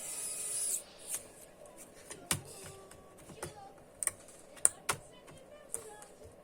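Plastic laptop parts being handled: a short scrape, then a series of irregular sharp clicks and taps.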